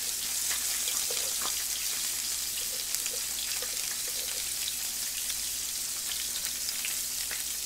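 Pork belly (imported frozen samgyeopsal) sizzling on a tabletop grill pan: a steady frying hiss dotted with small crackling pops of spattering fat.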